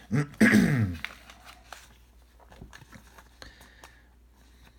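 A short spoken phrase at the start, then faint crinkling and small ticks of a thin clear plastic card sleeve being handled as a foil trading card is slid into it.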